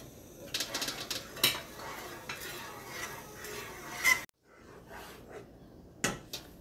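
Metal spoon stirring thick, reduced milk in a metal saucepan: scraping along the pan with several sharp clinks of the spoon against its side. There is a short break about four seconds in.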